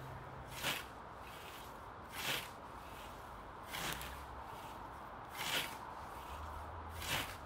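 Hand-forged European-style scythe blade swishing through thick, wet, tall grass in five even mowing strokes, about one every one and a half seconds.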